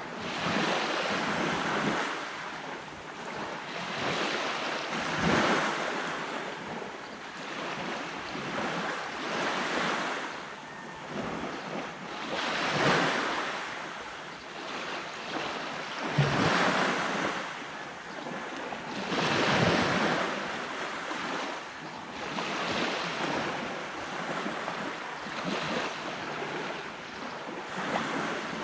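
Sea waves washing onto a beach, swelling and fading every three to four seconds, with wind on the microphone.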